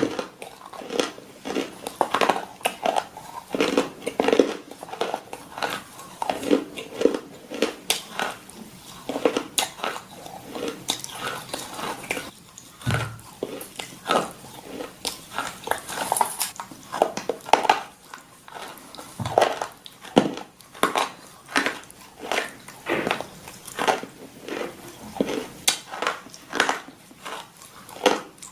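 A dog chewing crunchy food: an irregular run of sharp crunches and bites, several a second, with brief pauses between mouthfuls.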